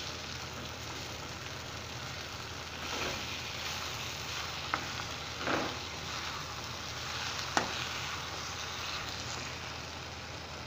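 Cabbage and freshly added eggs sizzling in a frying pan while a spatula stirs them, with scraping swells and a couple of sharp taps of the spatula against the pan.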